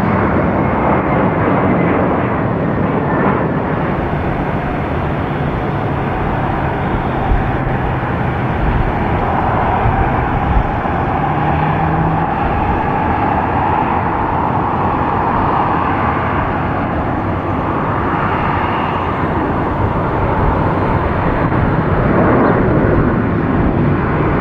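Airbus A321 jet engines at takeoff thrust: a steady loud roar, with an engine whine that rises in pitch through the middle as the aircraft accelerates down the runway toward liftoff.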